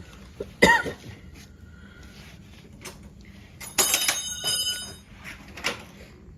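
Metal tools and steering parts being handled on a workshop bench: a sharp knock just under a second in, then a ringing metallic clang about four seconds in and another knock soon after.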